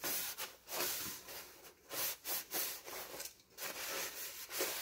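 Paper towel dampened with alcohol rubbing over a sanded resin surface in short, uneven wiping strokes, with the towel rustling.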